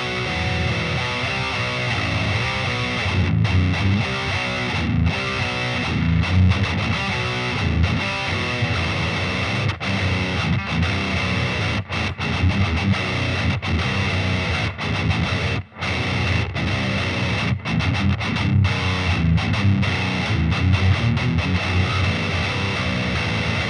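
Solar A1.7D LTD seven-string electric guitar played with heavy distortion through a Peavey Vypyr 60-watt combo amp: a continuous riff with the low notes strongest, broken by a few short stops, the clearest about two-thirds of the way through.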